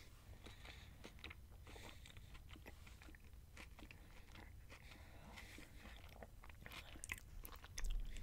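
Close-miked chewing of a mouthful of a beef bowl, lips closed, with faint wet mouth clicks. Near the end a metal fork digs into the fibre bowl with a low knock and a few clicks, the loudest moment.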